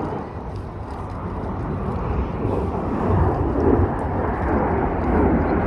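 Saab 37 Viggen jet fighter's single Volvo RM8 afterburning turbofan, a deep, rumbling jet roar that grows louder as the aircraft approaches.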